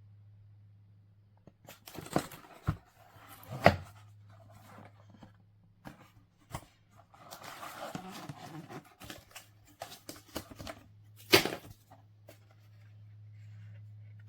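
Hands handling objects: rustling and a series of sharp clicks and knocks, the loudest about two, three and a half and eleven seconds in, over a low steady hum.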